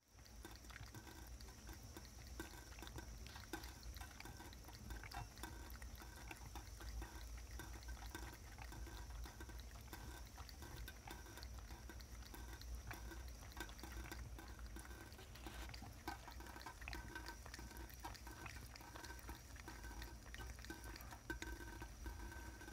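Cat lapping water from a thin trickle running out of a kitchen faucet: many quick, soft, wet tongue clicks over the faint sound of running water.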